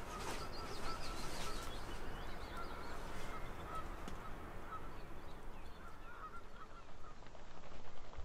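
Geese honking in short repeated calls, over a steady low outdoor hum.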